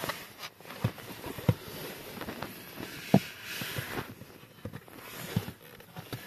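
Scattered plastic clicks and knocks from a Honda Civic's heater blower motor assembly, its plastic fan wheel and housing, being handled and shifted under the dashboard. The sharpest knock comes about three seconds in, followed by a moment of rustling.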